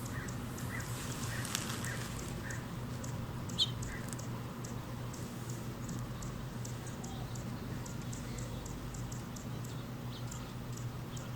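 Hummingbird calling: a run of short, high chip notes and a few brief chirps, one louder chirp about three and a half seconds in, over a steady low hum.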